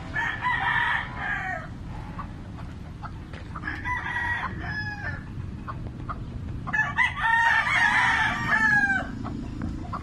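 Three rooster crows: one at the start, another about four seconds in, and a longer, louder one near the end.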